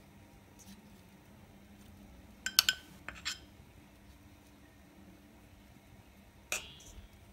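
Metal spoon clinking against steel while beaten egg is dabbed onto bread dough in a steel pan: a quick cluster of sharp clicks about two and a half seconds in, a couple more just after, and one ringing clink near the end.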